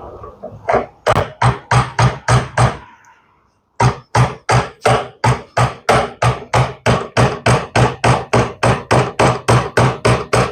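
Hammer driving small nails, struck in a steady rhythm of about three blows a second, with a short pause about three seconds in before the hammering resumes.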